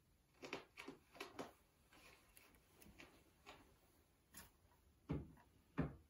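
A quiet room broken by soft taps and knocks: four quick ones in the first second and a half, a few fainter ones after, and two heavier thumps near the end.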